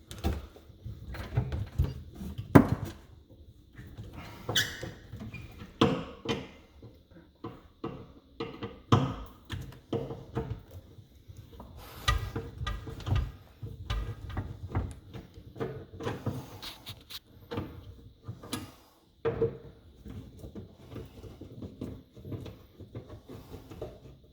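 Irregular knocks, clicks and metal clanks of hand tools working on an old garbage disposal's mounting hardware under a kitchen sink, with one especially sharp knock about two and a half seconds in.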